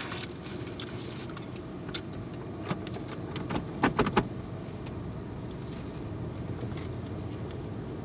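Eating a chicken sandwich: a few short mouth and chewing clicks, with a brief cluster of biting sounds about four seconds in. Under them runs the steady low hum of the car.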